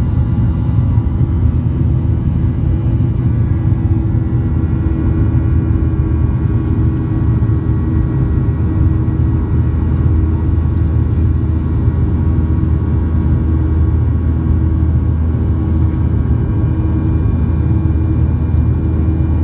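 Inside the cabin of a Boeing 737-800 climbing after takeoff: its CFM56-7B27E turbofan engines run steadily, a deep, even rumble with faint steady whining tones above it.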